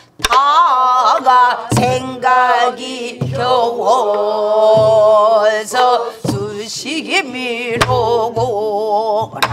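Voices singing a Namdo (southern Korean) folk song with wide, wavering vibrato. Buk barrel-drum strokes keep the beat about every second and a half.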